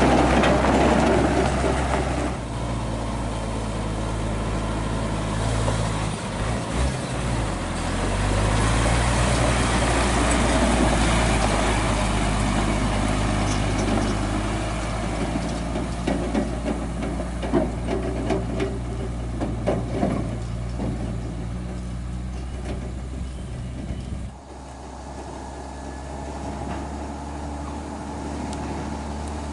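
Diesel engine of a Hino 500 FM320TI tractor unit running steadily as it pulls an empty lowboy trailer past, loudest in the first two seconds, with a scatter of sharp clicks in the middle. About 24 seconds in the sound drops suddenly to a quieter, more distant engine.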